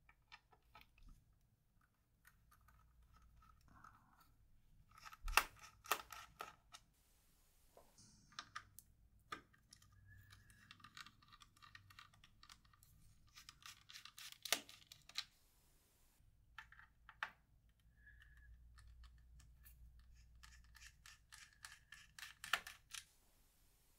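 Small Phillips screwdriver loosening the M2.5 captive screws of a Dell Latitude 5411's metal base cover: faint scratching and light clicks of the bit turning in the screw heads, with a handful of sharper clicks and brief squeaks.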